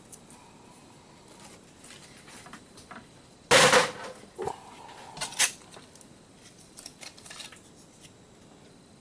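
Laptop parts being handled during teardown: small clicks, one loud metallic clatter about three and a half seconds in, then a clink that rings briefly, and a few more light clicks.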